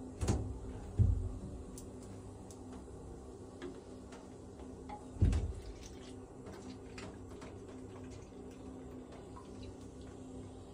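Cola poured from a plastic bottle into a bottle holding Mentos, with faint scattered clicks of liquid and fizz, over a steady low hum. Three dull thumps come earlier: near the start, about a second in, and about five seconds in.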